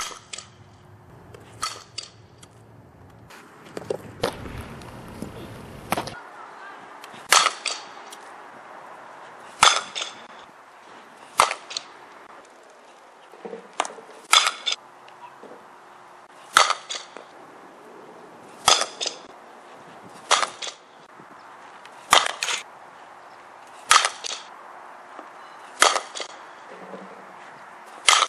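Softball bat hitting pitched balls again and again in batting practice: a sharp crack about every two seconds, several followed closely by a second, softer knock. A stretch of rushing noise comes about four to six seconds in.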